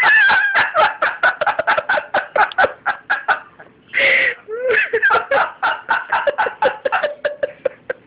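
Amazon parrot mimicking a person's laugh: a rapid run of short pitched 'ha' syllables, broken around four seconds in by one longer call, then another run of laughing.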